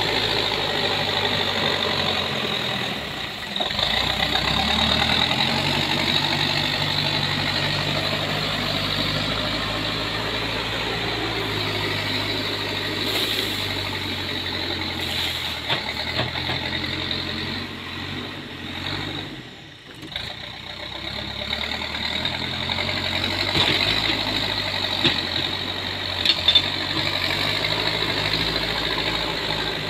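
Backhoe loader's diesel engine running under load as the machine pushes dirt and drives back and forth, the engine speed stepping up and down. A few sharp knocks come near the end.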